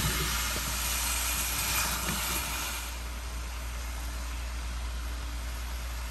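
Apple slices sizzling in melted butter in a stainless steel pot as they are poured in, a steady hiss with a few small knocks of slices landing; the hiss fades after about three seconds. A low steady hum runs underneath.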